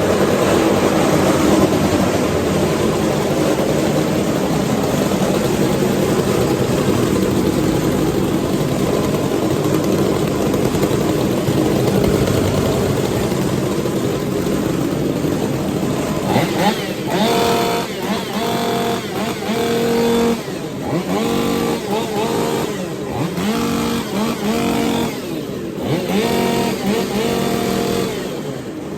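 Several Stihl MS 500i fuel-injected two-stroke chainsaws running together at high revs, a dense wall of engine noise. After about 16 seconds, single saws stand out, revving up and dropping back in quick blips.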